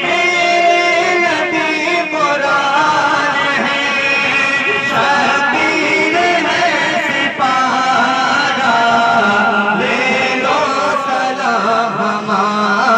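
Sung recitation of a devotional Islamic salam, a melodic chant carried over loudspeakers.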